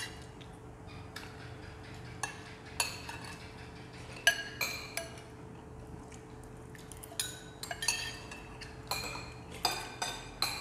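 Metal spoons clinking against ceramic soup bowls and plates during a meal: a dozen or so irregular, sharp clinks, each with a short ring, over a faint steady hum.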